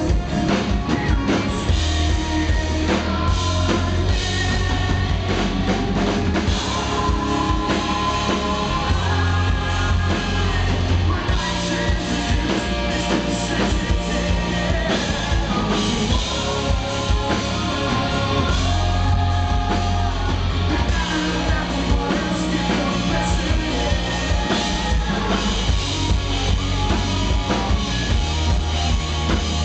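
Rock band playing live: a man singing lead into a microphone over a drum kit and band, loud and continuous.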